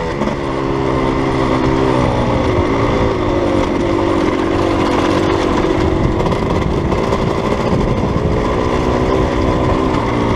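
Dirt bike engine engine-braking downhill with the throttle closed, the Rekluse automatic clutch locked up so the rear wheel drives the engine. The engine note holds steady with a slight wavering.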